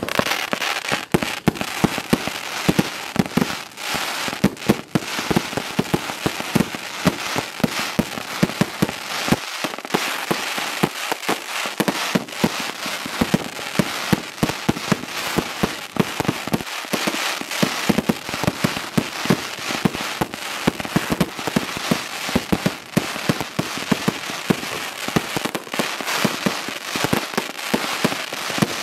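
Dominator Pro Line 'Crackle Explosion' 120-shot compound fireworks cake firing: a rapid, unbroken string of launch thumps and bursts, over dense crackling from its crackle stars.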